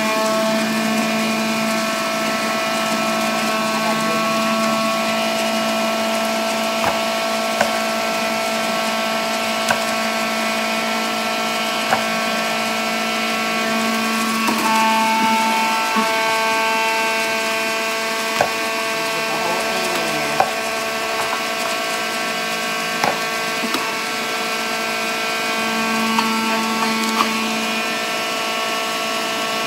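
Electric centrifugal juicer running steadily with a high motor whine as its spinning cutter grinds fruit and vegetables pushed down the feed chute, with scattered sharp clicks and knocks.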